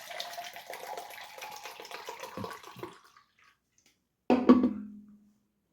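Liquid pouring into a cup for about three seconds, its tone rising slightly as the cup fills. Then, about four seconds in, a short loud low-pitched sound that fades out within a second.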